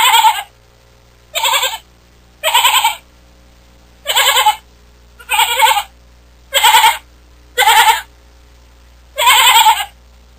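Lamb bleating: eight short, quavering bleats of about half a second each, spaced about a second apart, over a faint steady low hum.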